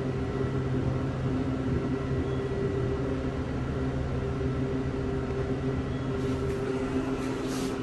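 Inside a modernized Dover traction elevator car riding down: a steady hum and rumble from the hoist and car in motion, which drops away about six seconds in as the car slows and levels into the floor. A few brief hissy noises come near the end.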